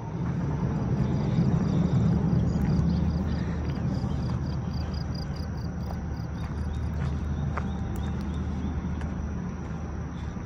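A motor vehicle running nearby with a steady low hum, loudest about two seconds in and easing slowly after, with a faint rapid ticking high above it.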